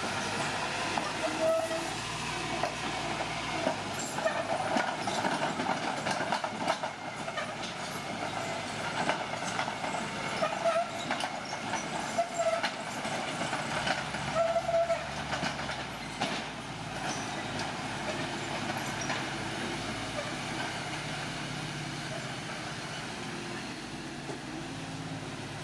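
Old crawler bulldozer working: engine running steadily under many metallic clanks from the steel tracks, with several short high squeals of metal rubbing on metal.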